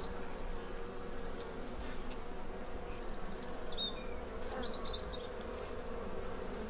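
Steady hum of a colony of black honeybees (dark European honeybee) crawling and fanning on an open brood frame. A few short high bird chirps come through about halfway in.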